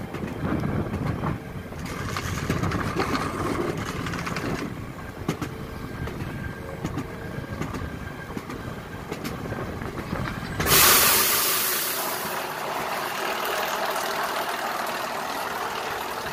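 Alpine coaster cart rolling along its steel monorail track, its wheels rumbling and rattling. About two-thirds of the way in a sudden loud hiss sets in and fades slowly as the deep rumble drops away, with the cart slowing into the finish.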